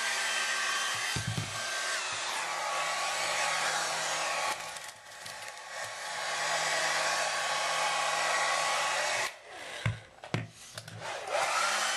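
Handheld hair dryer blowing on a wet dog's coat: a steady rush of air with a motor whine. It falls away briefly twice, near the middle and shortly before the end, with a couple of low knocks from handling.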